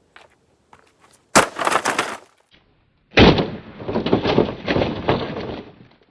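A television being smashed: two loud crashes of breaking, the first brief, about a second and a half in, the second about three seconds in and longer, with a clatter of many pieces.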